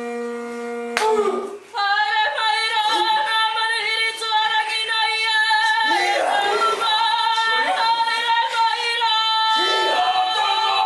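A steady horn-like note cuts off about a second in, and a woman's voice then takes up a long, high, wavering call held in drawn-out phrases: the karanga, the ceremonial call of a Māori pōwhiri welcome.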